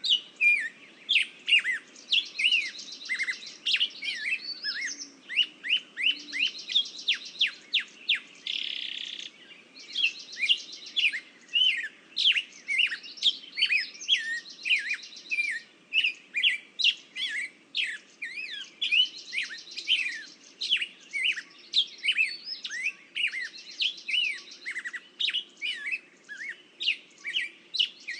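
Songbirds chirping: a dense run of quick chirps that sweep sharply downward in pitch, with a buzzy trill recurring every few seconds.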